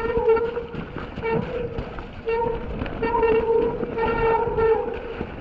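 Mountain bike disc brakes honking on and off in wet conditions: a steady droning tone at the same pitch each time it sounds. Under it run the rattle and knocks of the bike and tyres over a rough, muddy trail.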